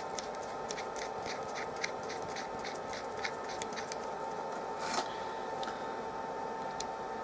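Faint, irregular light ticks of a screw being turned in by hand into a T-nut in a milling machine table, with a sharper click about five seconds in as an Allen key goes into the screw head. A faint steady hum runs underneath.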